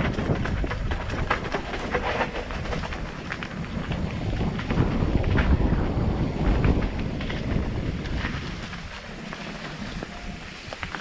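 Hardtail mountain bike being ridden over rough trail: wind buffeting the camera microphone in a heavy rumble, with frequent short clicks and rattles from the bike over bumps. The rumble eases off near the end.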